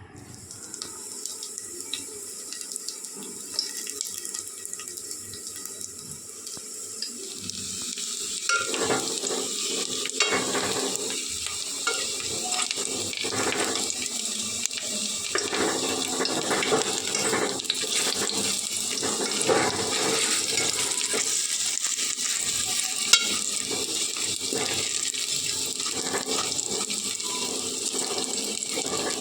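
Water running from a kitchen tap and splashing, getting louder and fuller about a third of the way in, with scattered small knocks and clatter.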